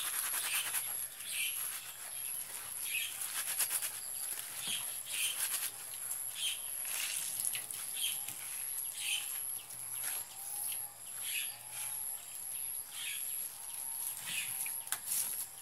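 Wet hands kneading and wringing crushed krueo ma noy (Cyclea barbata) leaves in a plastic bag, making a scrunching, squishing stroke about once a second as the juice is pressed out.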